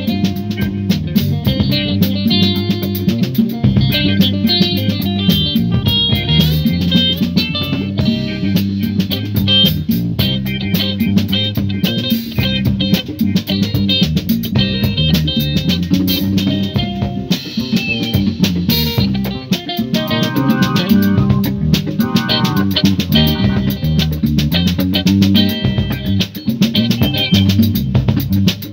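Live band playing an afrobeat groove: a steady electric bass line and drum kit, with guitar on top.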